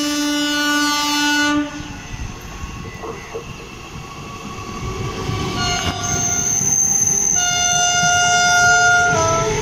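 Indian Railways train horns over the rumble of a moving train: one horn blast for about the first two seconds, then a second horn from about seven seconds in whose pitch drops just before it stops, as when a train passes. A thin high squeal runs from about six seconds on.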